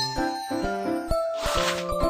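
Background music: a light, bouncy children's tune with bell-like notes and a steady beat.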